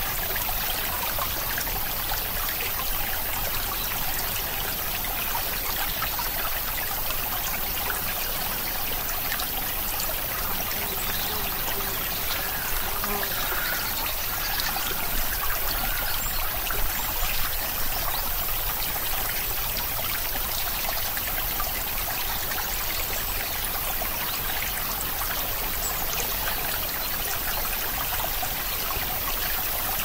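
Running water trickling steadily.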